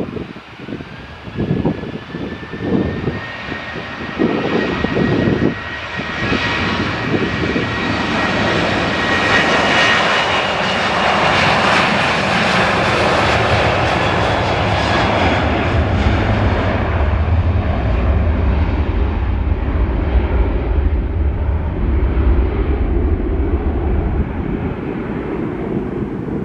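Jet airliner passing close by: a rising engine whine in the first few seconds, then a roar that peaks about halfway through and settles into a low rumble as it moves away. Wind buffets the microphone during the first few seconds.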